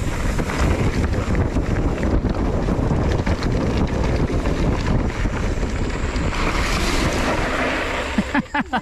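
Wind noise buffeting the microphone while a mountain bike rides along a dirt trail, with short clicks and rattles from the bike over the ground. The rush drops away near the end.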